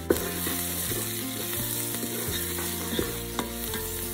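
Chopped onions and ground spices sizzling in hot oil in a Ninja Foodi's pot on high sauté while being stirred with a wooden spoon, with a few sharp knocks, the first just as it begins.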